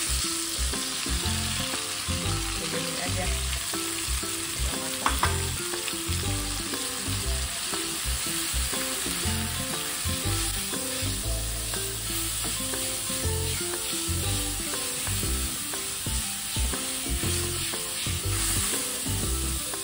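Oncom, chilies and lime leaves sizzling steadily in hot oil in a wok while a wooden spatula stirs and scrapes them around.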